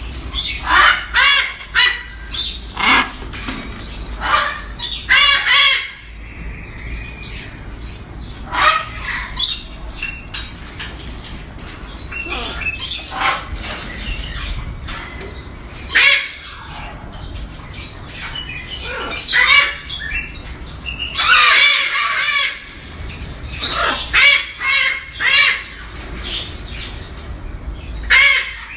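Birds squawking: harsh, pitched calls repeated in bursts, with quieter gaps between clusters.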